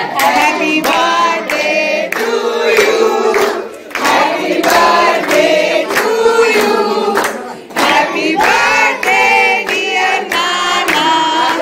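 A group of voices, many of them children, singing a birthday song together in chorus, with hands clapping along in time.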